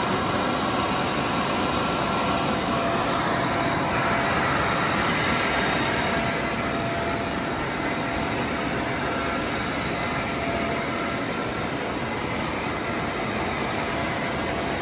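Dyno cooling fan blowing air: a steady, loud rushing noise with a faint steady whine running through it.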